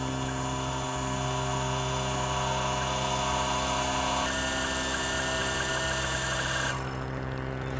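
Vixen Sphinx SXW mount's motor drives slewing the telescope to a go-to target, a steady electric whine with a buzzing edge. The tone changes about four seconds in, and the higher part of the sound cuts off near the end as the slew winds down.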